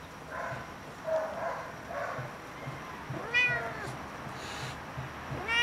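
Domestic cat meowing: softer, rougher calls in the first two seconds, then a clear meow that rises and falls about three seconds in, and another starting near the end.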